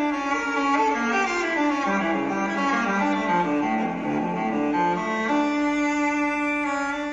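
Slow instrumental background music. The melody steps down in pitch, then settles on a long held note near the end.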